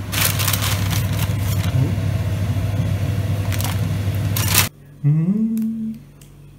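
Pot of water at a rolling boil on the stove with pelmeni dumplings in it: steady bubbling noise over a low hum, with a few light clinks. It cuts off suddenly a little before five seconds in, and a short rising 'mmm' from a person follows in a quiet room.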